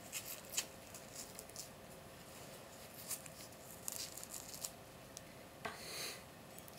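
Faint scattered clicks and rustles of a tethered Rubik's cube and its elastic wrist strap being handled, with a soft rustle a little before the end.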